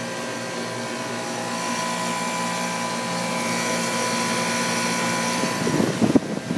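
Guardian central air conditioner's outdoor condensing unit running steadily, its Bristol compressor humming under the condenser fan's whoosh, with a few steady whining tones; the suction line is cold and sweating, so it is cooling properly. Near the end a burst of uneven rumbling noise breaks in.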